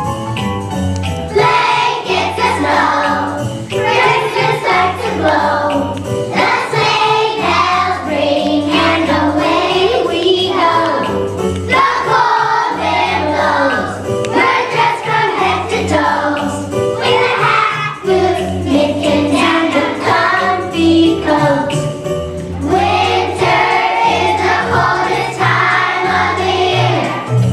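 A children's choir of first graders singing a winter song in unison over an instrumental accompaniment with jingle bells.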